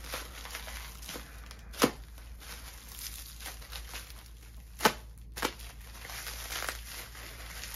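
Tape and packaging being cut and torn open, with crinkling and rustling throughout. Two sharp knocks stand out, about two seconds in and again about five seconds in.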